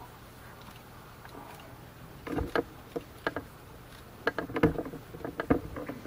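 Irregular knocks and thuds starting about two seconds in, a few heavy low ones among lighter clicks.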